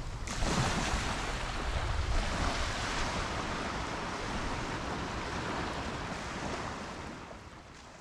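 Surf washing onto the beach, a wave surging in about half a second in, with wind rumbling on the microphone. The sound fades out over the last second or two.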